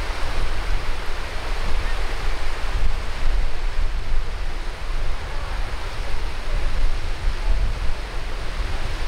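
Small waves breaking and washing up a sandy beach: a steady rush of surf, with wind rumbling on the microphone.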